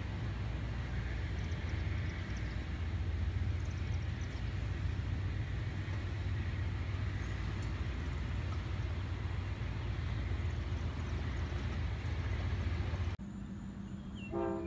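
Steady low rumble of a passenger train rolling past, which cuts off abruptly about 13 seconds in.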